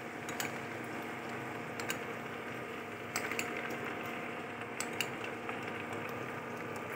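A few light clinks of a metal ladle and bowl against a kadai of chicken chili, over a faint steady hiss from the pan, as a cornflour slurry is poured in and stirred.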